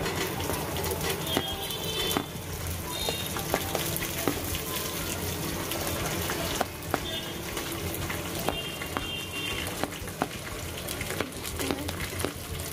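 Chopped green beans being spooned into hot oil with fried onions in a pressure cooker: a steady sizzle of frying, with repeated clicks and scrapes of a steel spoon against the plate.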